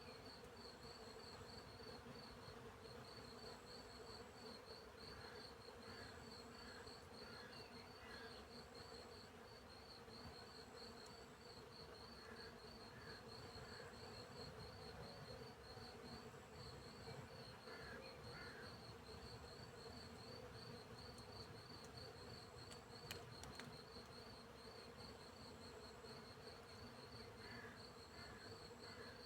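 Faint field insects: crickets chirping in a steady, even pulse, with a higher insect trill that comes and goes, over a steady buzzing of bees. Short groups of softer chirps break in now and then.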